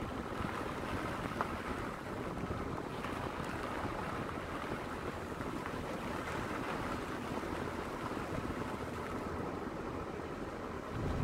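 Steady wind noise buffeting the microphone, an even rushing with no distinct events.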